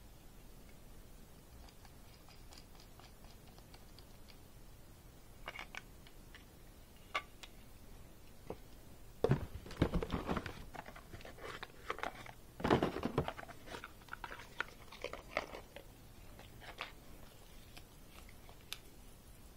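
Plastic packaging and a cardboard box being handled and rummaged through: a few light clicks at first, then two bouts of crinkling and crunching near the middle.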